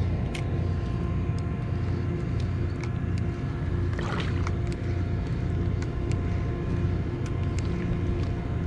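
Steady low engine drone holding a constant pitch, with a few faint clicks on top.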